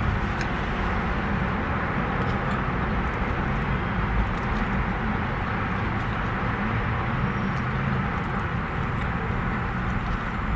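Steady hum and hiss inside a parked car, with a few faint small clicks.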